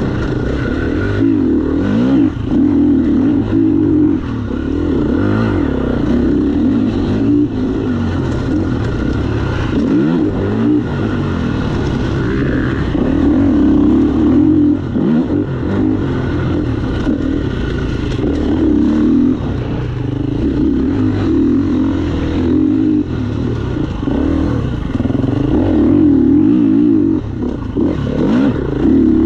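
Honda CRF four-stroke dirt bike engine ridden hard, its note climbing and dropping over and over as the throttle is opened and closed through the gears.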